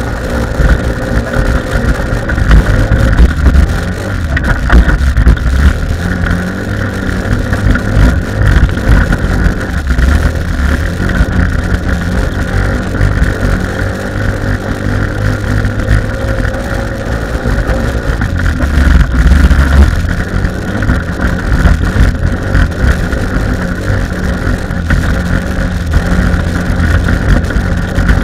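PGO 250 buggy's engine with a Malossi CVT variator, heard from on board at racing speed, its revs rising and falling as it is driven hard over a rough ploughed-dirt track, with knocks and rattles from the chassis over the bumps.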